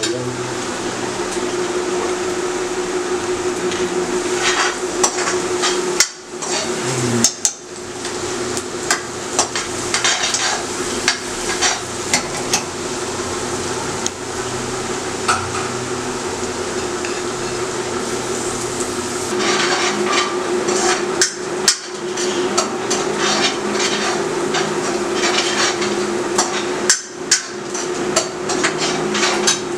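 A spatula stirring and scraping in a steel kadhai of frying onions, with frequent metallic clinks and knocks against the pan, over a steady hum.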